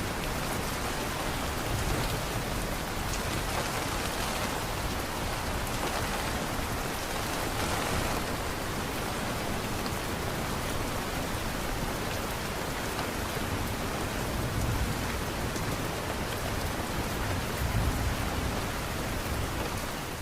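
Steady rain falling on a surface, an even, continuous hiss of drops.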